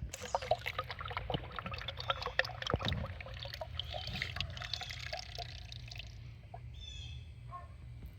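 Motor oil being poured from a quart bottle into the engine's oil filler, gurgling and trickling, tapering off about six seconds in.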